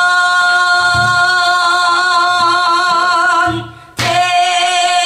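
A female pansori singer holding a long note with a wavering vibrato, with a few low strokes on the buk barrel drum beneath her. The note breaks off about three and a half seconds in, and she takes up a new held note about half a second later.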